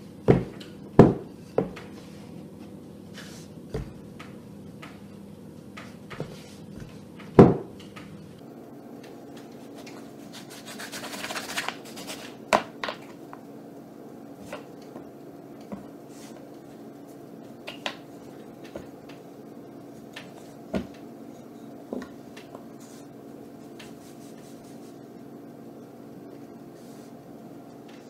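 Cake-decorating handling at a wooden pastry board: a wooden rolling pin and plastic fondant cutters knocking on the board, several sharp knocks in the first eight seconds, a rustle of sugar paste being rubbed and lifted around eleven seconds in, then scattered light taps, over a faint steady hum.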